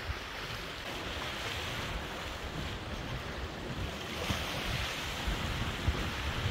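Wind blowing on the microphone over the steady wash of small sea waves.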